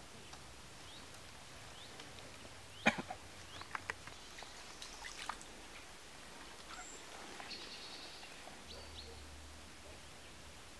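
Quiet background with faint short bird chirps, a sharp knock about three seconds in, then a few lighter clicks.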